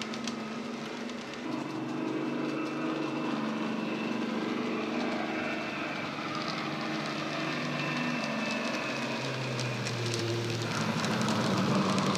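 Sound decoder in a Bachmann Class 55 Deltic model locomotive playing a recorded Napier Deltic diesel engine sound through its EM2 speaker, the engine note running steadily and shifting in pitch a few times, with light clicks throughout. It grows louder near the end as the model comes close.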